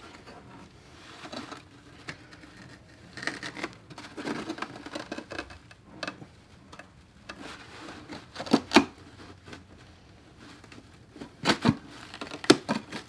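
Ceramic furnace coil plate being worked loose from its softer refractory base plate, scraping and grating with several sharp clicks and knocks. The plate is cracking off along the softer base.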